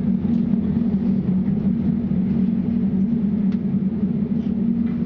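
Moving passenger train heard from inside the carriage: steady running noise with a constant low hum and a few faint ticks.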